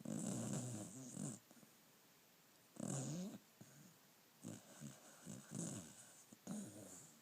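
Beagle snoring in its sleep: uneven snores with a wavering pitched rasp, a long one at the start, another about three seconds in, then several shorter ones close together.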